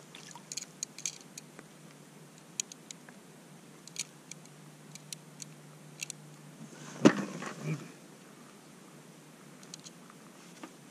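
Scattered light clicks and ticks of an ice-fishing angler handling a jigging rod and line on the ice, then one sharp knock with a short rattle about seven seconds in as a smelt is swung up out of the hole and landed.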